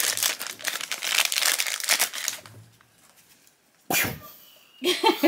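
Crinkly plastic wrapper of a toy doll being torn and crumpled open by hand for about two and a half seconds, then a pause. About four seconds in comes one short, loud burst.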